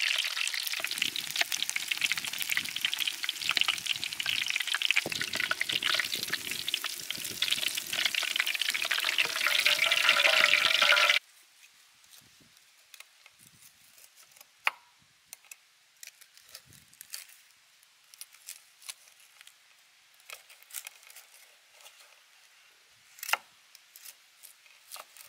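Pork knuckle deep-frying in hot oil: a loud, dense sizzle and crackle that cuts off suddenly about eleven seconds in. After that, faint crunches and clicks of a kitchen knife cutting through the crisp fried skin onto a wooden board, with two sharper cracks.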